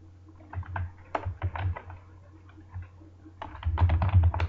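Computer keyboard typing: short runs of key clicks, with a faster, louder run near the end.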